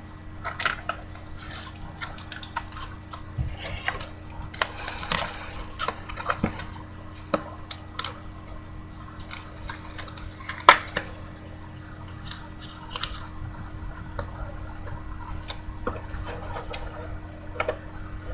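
Scattered light clicks and taps with soft rustling from small handling, over a faint steady hum; the sharpest click comes about ten and a half seconds in.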